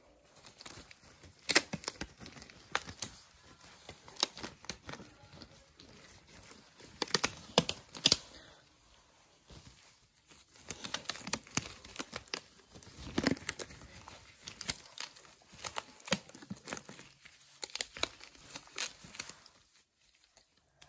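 Disposable gloves being pulled onto the hands and adjusted: repeated crinkling and sharp snapping of thin glove material, with a short pause about halfway through.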